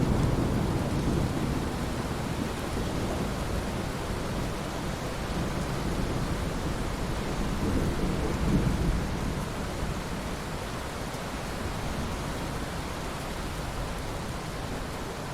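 Steady rain with rolling thunder. Low rumbles swell near the start and again about halfway through, then die away, leaving the rain.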